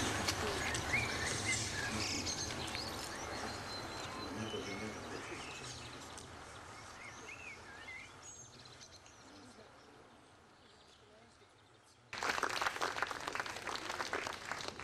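Outdoor ambience with birds chirping, fading gradually down; about twelve seconds in it cuts abruptly to a louder, crackling noise.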